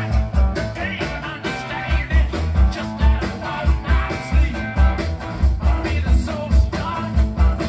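A song with vocals and a steady, heavy bass beat, played through a Yamaha integrated amplifier and Bowers & Wilkins 606 S2 bookshelf speakers and heard in the room.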